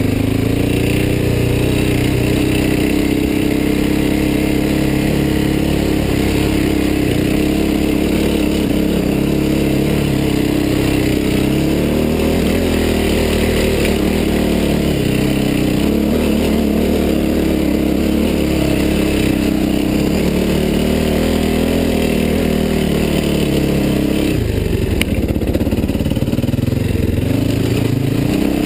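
Yamaha WR426F's four-stroke single-cylinder dirt bike engine running under load while climbing a dirt trail, its note rising and falling with the throttle. About 24 seconds in the note dips briefly and then climbs again.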